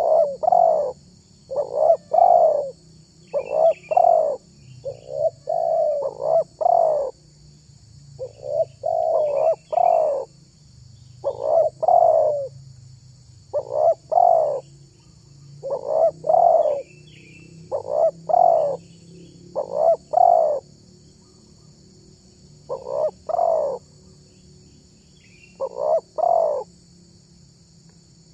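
Spotted dove (tekukur) cooing: short phrases of two or three low notes, repeated about every two seconds, with a gap of a few seconds near the end. Faint high chirps of a small bird sound above the coos.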